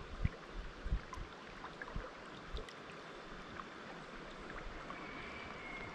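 River water flowing steadily past rocks, with a few soft low thumps in the first couple of seconds.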